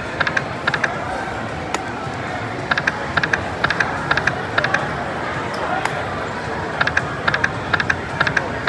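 Crazy Coin video slot machine spinning, its reels stopping one after another with runs of short, sharp clicks that come again with each new spin, over a steady background din.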